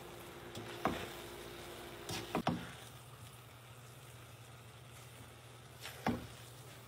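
Slotted spoon knocking and scraping against the metal cooking pot while stirring browned minced meat, with sharp knocks about a second in, a cluster around two to two and a half seconds, and one more just after six seconds, over a steady low hum.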